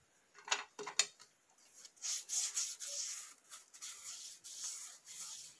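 Thin wooden stick rubbing and scraping over a sheet of EVA foam (a craft leaf) lying on a hot clothes iron. There are a couple of light taps about half a second and a second in, then, from about two seconds in, repeated short scratchy strokes, about three a second.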